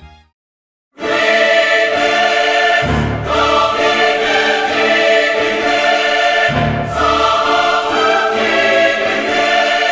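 Background music: after a brief silence, a choir-like piece with sustained voices and orchestra starts about a second in, swelling every few seconds.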